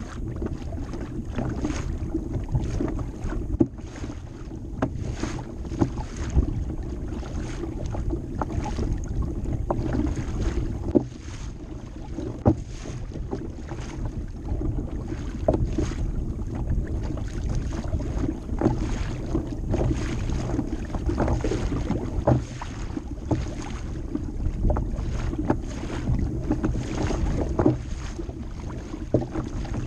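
Wind noise on the microphone over water slapping and splashing against the hull of a pedal-driven fishing kayak moving through light chop, with irregular small knocks and splashes.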